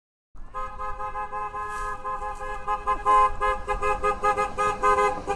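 Car horns honking, cutting in suddenly from silence: a long steady blast with two tones sounding together, then quick repeated short honks from about halfway.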